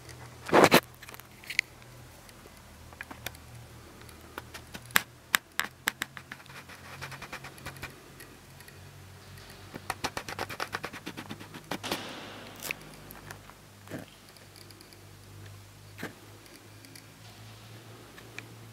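Scattered sharp clicks and knocks over a low steady hum, with a loud knock about half a second in and a quick run of clicks around ten to twelve seconds in.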